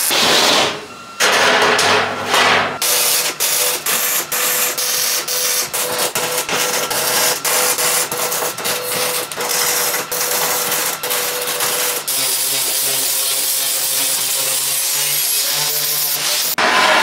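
MIG welding arc crackling and sputtering in short runs with many brief breaks. About two-thirds of the way through it gives way to an angle grinder running steadily against steel.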